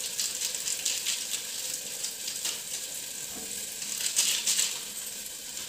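Tomato-and-chilli masala sizzling as it fries in a pan on a gas stove, with irregular crackles over a steady hiss and a run of louder crackles about four seconds in.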